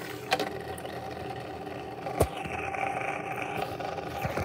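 Small electric motor of a battery-powered toy train engine whirring steadily as its wheels turn, with a few sharp plastic knocks, the loudest at the very end.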